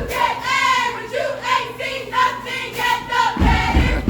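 Cheerleading squad chanting a cheer in unison, many shouted voices rising and falling together in rhythm, with heavy low thuds from about three and a half seconds in.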